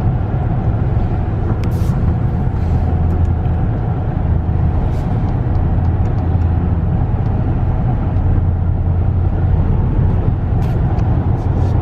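Steady drone of a 2015 Dodge Ram 1500's 5.7-litre Hemi V8 and its tyres on the road, heard from inside the cab while cruising at about 55 mph. A few faint ticks sound over the drone.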